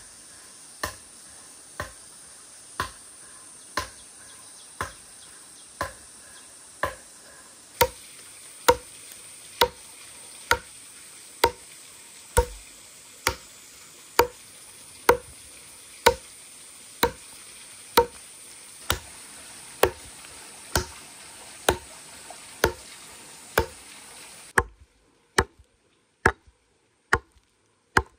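Axe chopping into a felled log, one sharp stroke about every second. The strokes come quicker, nearly two a second, near the end.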